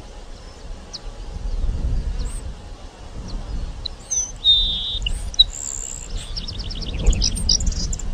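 Grassland sparrow (Ammodramus humeralis) singing: thin high notes, a short buzzy note about halfway through, then a quick run of short high notes near the end, over a low background rumble.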